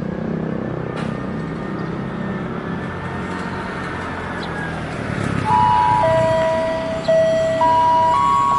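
Diesel passenger locomotive approaching with a steady low rumble. From about five and a half seconds in, its horn sounds loudly in a string of held notes at changing pitches, one after another like a short tune.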